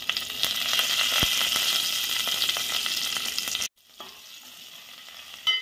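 A ghee tempering of freshly added curry leaves with crushed ginger, green chilli and garlic sizzling hard in a stainless steel pot. The sizzle cuts off abruptly about two-thirds in, and a fainter sizzle follows.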